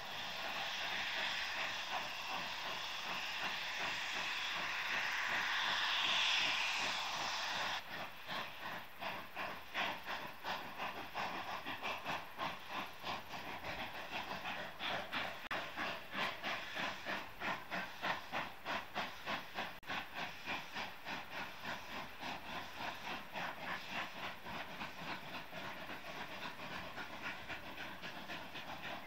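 Two narrow-gauge Mikado steam locomotives, a K-37 leading a K-36, climbing a grade. For about the first eight seconds a loud steady hiss of steam blowing off from the leading engine fills the sound, then it cuts off suddenly, leaving the rhythmic exhaust beats of both engines working hard, about two beats a second.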